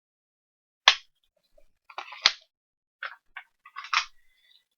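Sharp clicks and rattles of hard objects being handled: two loud clicks about a second and two seconds in, then a cluster of lighter clicks.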